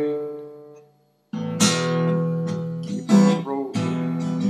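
Acoustic guitar music of strummed chords. A chord dies away to a brief silence about a second in, then the strumming starts again.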